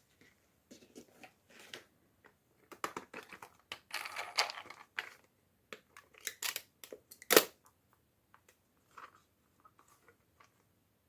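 Toy packaging being opened by hand: a string of short crinkling, tearing rustles, with one sharp, louder snap about seven seconds in, then a few faint ticks.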